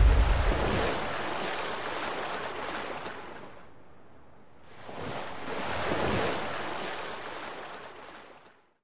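Sea waves washing: a first surge dying away, then a second building about five seconds in and fading out.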